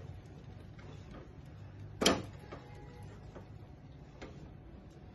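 Silicone spatula stirring a thick milk-powder mixture in a nonstick pan: soft scrapes and light ticks, with one sharp knock about two seconds in.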